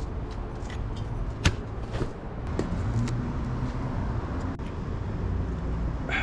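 Car engine running steadily with a low hum, and a sharp click about a second and a half in.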